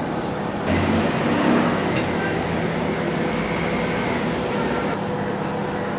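Microwave oven running with a steady electrical hum, which grows louder and deeper a little under a second in, with a single sharp click about two seconds in.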